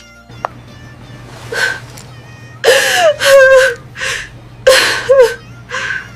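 A voice gasping and whimpering in pain, about seven strained breaths, the loudest around the middle carrying short wavering moans: the mother cat in labour.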